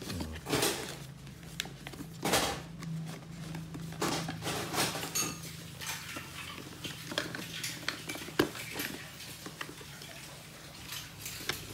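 Irregular light clicks, knocks and rustles of cardboard boxes and plastic packaging being handled and opened, over a low steady hum.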